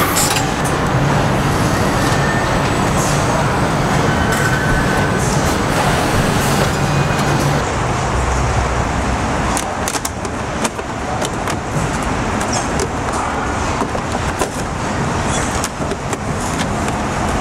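Car assembly hall ambience: a steady wash of machinery noise with a low hum. In the second half, frequent short clicks and knocks join it.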